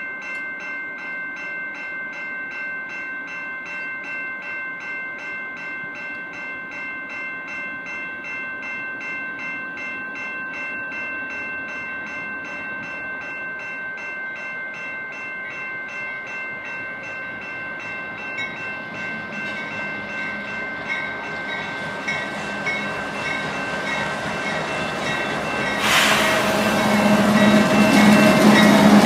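Level-crossing warning bells ringing in a fast steady rhythm as a freight train approaches. A diesel locomotive's rumble grows louder over the last third, and it gets suddenly much louder near the end as the locomotive reaches the crossing.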